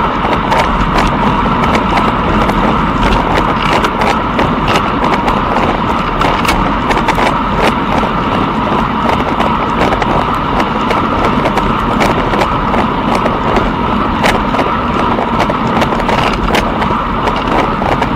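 A runner's footsteps striking the path in a quick rhythm, over a steady rushing noise of movement.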